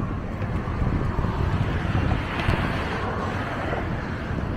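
Wind buffeting the microphone over the hiss of road traffic. The traffic hiss swells louder about halfway through.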